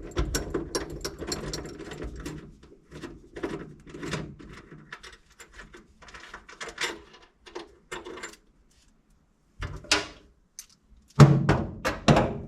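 Ratchet wrench clicking in quick runs as bolts are turned, with metal tool and hardware clicks. After a short pause comes a sharp knock, then a louder noise shortly before the end.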